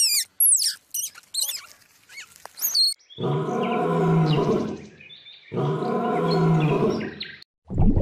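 Quick, high, sliding chirps and squeaks from a squirrel, then from about three seconds in two long, low lion roars of about two seconds each with a short break between them.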